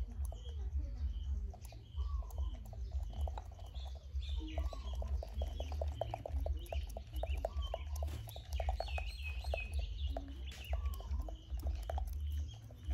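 Chickens clucking and small birds chirping in a yard, with short calls every couple of seconds and a cluster of high chirps about nine seconds in, over a steady low rumble.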